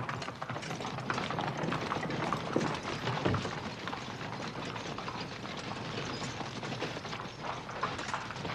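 Horse-drawn carriage on the move: a continuous clatter of wheels and hooves.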